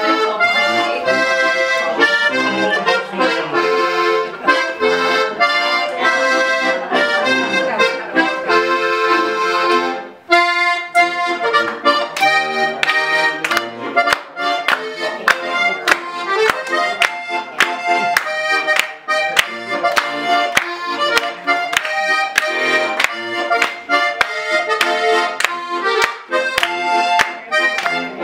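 Button accordion playing a tune with sustained chords. It breaks off briefly about ten seconds in, then goes on in a quicker, bouncy rhythm of short chords.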